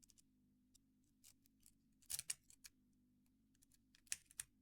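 Faint, irregular metallic clicks of a rake pick and tension wrench working the pins of a small laminated padlock, with a small cluster about two seconds in and another near the end.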